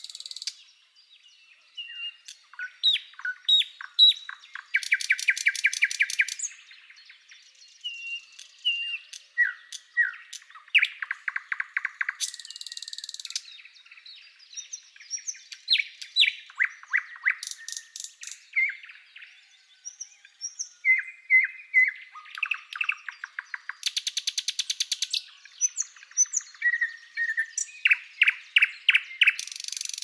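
A nightingale singing a varied song in short phrases separated by brief pauses. The phrases mix pure whistled notes, quick chirps, and fast runs of rapidly repeated notes that sound like rattles or trills.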